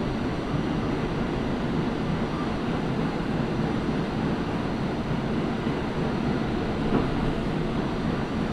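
R46 subway car running through the tunnel, heard from inside the car: a steady, even rumble of the ride with a faint click about seven seconds in.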